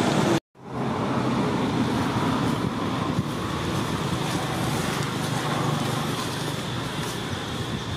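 Steady outdoor background noise, like distant road traffic, after a brief dropout to silence about half a second in.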